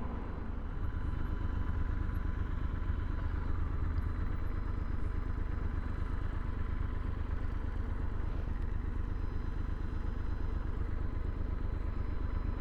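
Triumph Scrambler 1200 XE's parallel-twin engine running steadily, with no revving.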